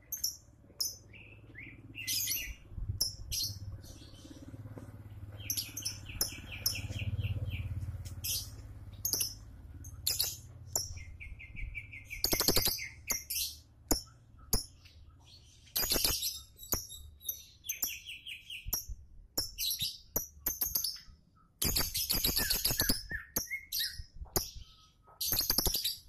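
Caged lovebird chattering: a long string of short, shrill chirps with several fast rattling trills, about six, eleven and seventeen seconds in.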